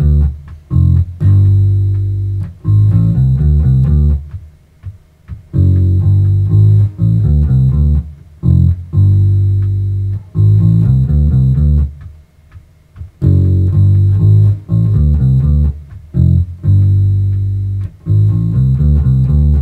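1965 Fender Precision Bass with Thomastik flatwound strings played through an Ampeg RB110 bass combo, a bass line in short phrases of notes with brief pauses between them. A Gruv Gear FretWrap is fitted to damp open-string noise; the player is unsure whether it changes the tone.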